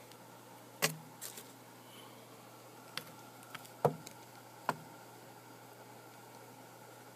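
A handful of sharp clicks and knocks, about seven in four seconds, the loudest near the middle, over a faint steady low hum.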